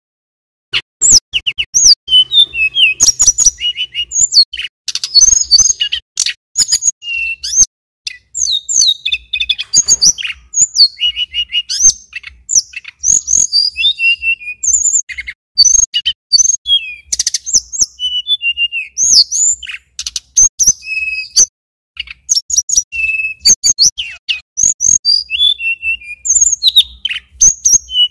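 Male tledekan gunung (sulingan gunung) singing a fast, continuous run of high whistled notes and rapid rising and falling glides, with one brief pause about three-quarters of the way through.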